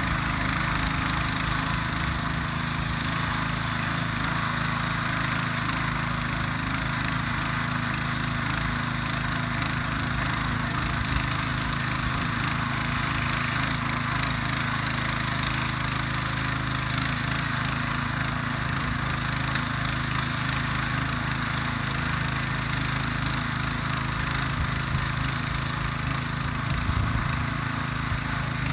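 Ruris DAC 7000 ACC2 petrol rotary tiller running steadily under load as its tines churn dry garden soil.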